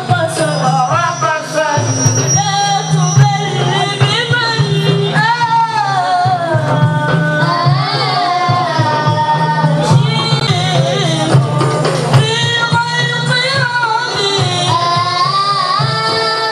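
Music with a voice singing a long, wavering, ornamented melody over a steady low drone.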